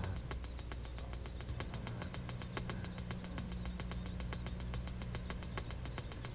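Rapid, irregular clicking, several clicks a second, over a steady low hum, from the soundtrack of an experimental short film.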